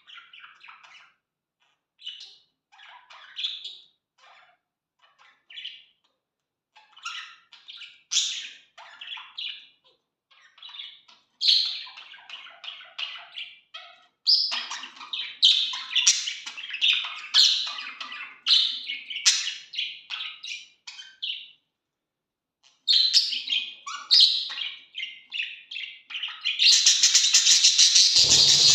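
Budgerigars chirping and warbling in short bursts with pauses, getting busier and louder halfway through. Near the end a loud, rapid, even fluttering sound joins the chirps.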